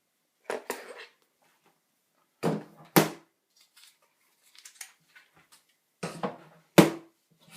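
Knocks and clunks of a hard drive and computer parts being handled and set down on a hard surface, in three small clusters, the sharpest about three seconds in and near the end.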